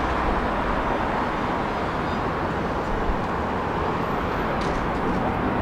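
Steady road traffic noise from cars driving across a city square, with a brief faint hiss about four and a half seconds in.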